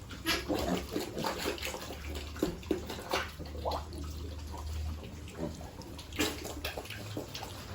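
Water splashing and running as piglets are bathed, with a few short piglet grunts and squeals among the splashes.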